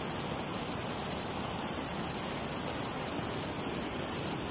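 Steady rushing of floodwater from a canal that has broken its banks, an even, unbroken roar of water.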